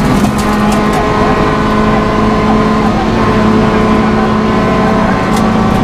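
Rally car engine heard from inside the cockpit, pulling hard at nearly constant revs with no gear change.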